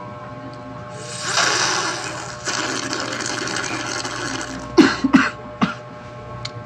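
Loud slurping through a straw from a small plastic drink bottle, in two long pulls, followed by a few short sharp noises from the throat.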